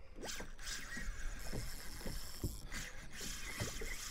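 Small waves slapping against a plastic kayak hull: short, irregular low knocks, a few to the second, over a steady low wash of water.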